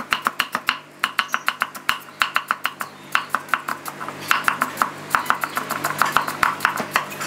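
Cleaver rapidly chopping carrot into thin sticks on a wooden end-grain chopping block, an even run of about six knocks a second.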